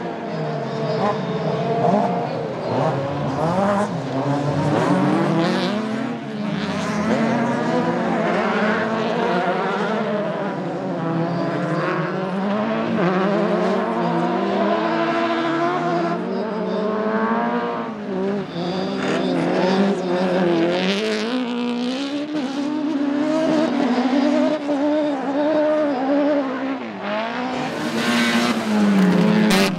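Several autocross racing cars running hard on a dirt track, their engines revving at once and rising and falling in pitch through gear changes and corners. A loud rushing hiss comes near the end.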